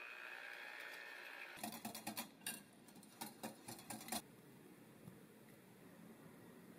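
An electric hand mixer whirring with a steady high whine in a bowl of cream, cut off about a second and a half in. A wire whisk then clicks and taps quickly and unevenly against a glass bowl for about two and a half seconds, followed by faint hiss.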